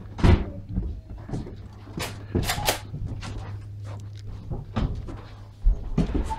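Irregular knocks, thumps and scrapes as a person climbs the step into a caravan and walks across its wooden floor, with a large rolled floor sheet bumping and rubbing against the doorway.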